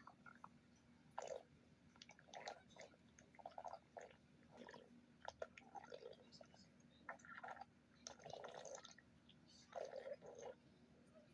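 Stomach growling: faint, irregular watery gurgles and squelches, a short burst about every second.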